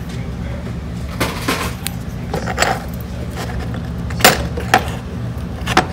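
Loose coins clinking as a hand picks through them in a plastic bin: several sharp clinks, the loudest about four seconds in, over a steady low hum.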